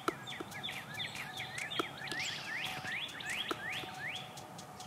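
Birdsong: a quick series of short, rising whistled notes, several a second and overlapping one another, with a few faint ticks.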